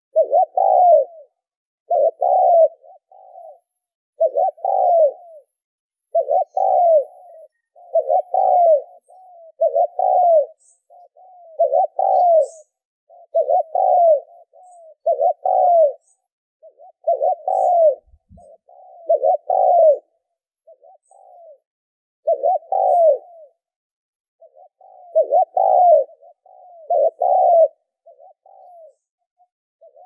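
Spotted dove cooing: a steady run of low coo phrases, one roughly every two seconds. A few faint high chirps of other birds come in the background.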